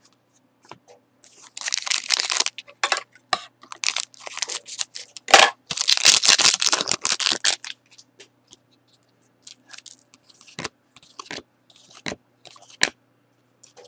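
A Panini Select hockey-card foil pack being torn open and its wrapper crinkled, in several bursts of tearing in the first half, the sharpest about five seconds in. Then light clicks and rustles as the cards are handled.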